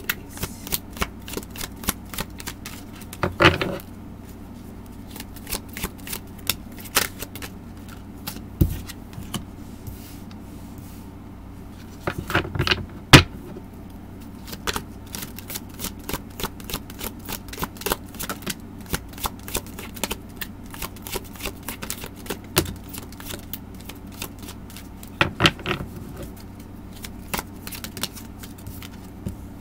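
Oracle cards being shuffled by hand and laid down on a table: a run of irregular small clicks and flicks, several a second, with a few louder knocks, the loudest about thirteen seconds in.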